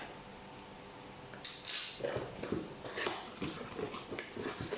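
Cardboard and packing material being handled and pulled open by hand: a string of irregular crackles, scrapes and light knocks that starts about a second and a half in.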